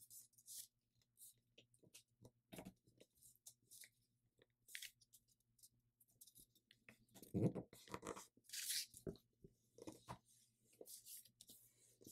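A thin square sheet of paper rustling and crinkling faintly as hands fold it and press the creases flat, in short irregular swishes and crackles, with a cluster of louder crinkles a little past the middle.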